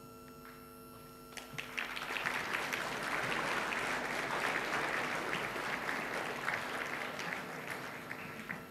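An audience applauding: the clapping starts about a second and a half in, builds up, then fades away near the end.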